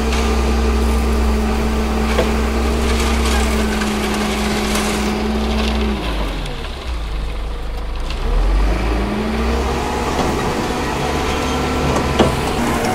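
Ajax Argo 4500 self-loading concrete mixer's diesel engine running steadily at raised revs. About six seconds in the revs drop away, then climb back up a couple of seconds later.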